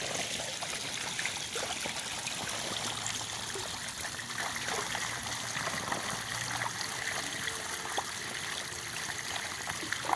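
Steady trickle of running water, with a few faint clicks.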